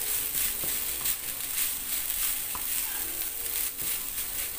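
Fried rice sizzling steadily in a nonstick frying pan while a wooden spatula stirs and scrapes through it.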